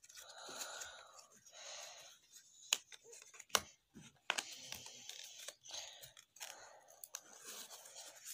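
Paper-and-card pen packaging being handled, cut and torn open, with rustling and crinkling and a few sharp clicks from the plastic pen case.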